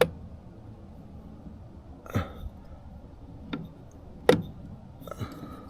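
Sharp clicks and knocks from hand work on a 25 hp Yamaha outboard's shift linkage, about five of them, the loudest about four seconds in.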